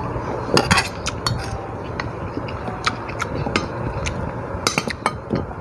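Scattered light clinks and clicks of eating with dishes and utensils at the table, a few close together about half a second in and again near the end, over a steady low background rumble.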